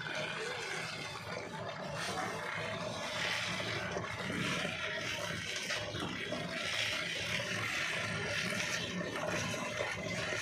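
Large old single-cylinder horizontal diesel engine of the Ruston type being turned over by hand at its heavy flywheel, not yet firing: a steady rushing noise with a low rumble as the engine is cranked.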